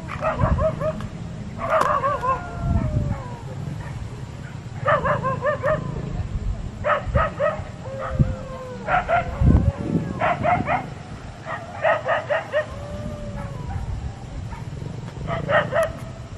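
A dog barking in quick runs of about three to five short yaps, the runs repeating every second or two.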